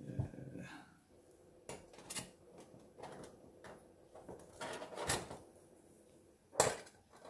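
Thin stainless-steel plates of a folding camping firebox clinking and scraping as they are slid into the frame and fitted together: a string of separate metallic knocks, with one sharp clack near the end.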